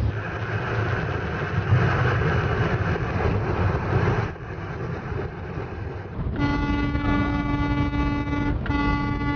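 Steady road noise from a moving vehicle. Then, from about six seconds in, a BNSF freight locomotive's horn sounds a chord of several steady notes in two long blasts with a brief gap between them.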